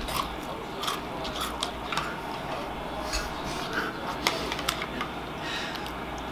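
A metal spoon clicking and scraping in a plastic cereal bowl: scattered light clicks, irregularly spaced, over a steady background hiss.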